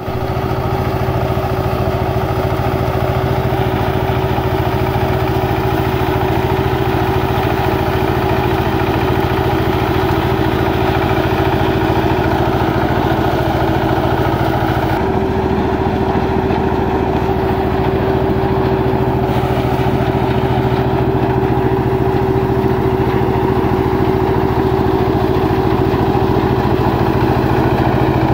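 Small engine of a walk-behind mini harvester running steadily as it cuts standing crop, a constant droning engine note that holds at one pitch.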